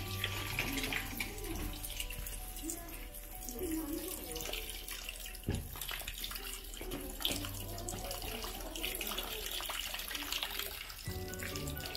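Thin stream of water running steadily from a bamboo spout into the stone basin of a shrine's hand-washing fountain (temizuya), with background music.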